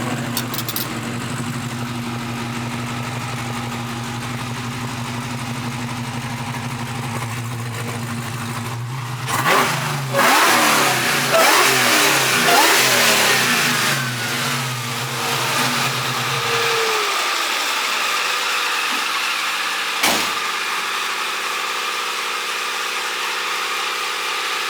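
Supercharged Hellcat V8 in a 1969 Dodge Charger running at a steady idle, then revving hard and pulling for several seconds about nine seconds in. The low engine note drops away later, with a single knock near the end.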